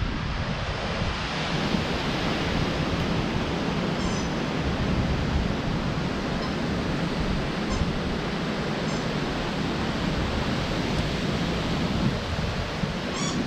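Gusty storm wind rushing steadily through the leaves of mango and papaya trees, with wind buffeting the microphone.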